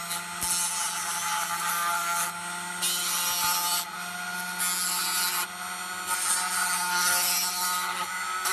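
Dremel rotary tool running steadily, spinning an olive-pit bead on a needle mandrel, while 120-grit sandpaper is pressed against the bead. The sanding rasps over the motor hum in about five passes, each lasting about a second.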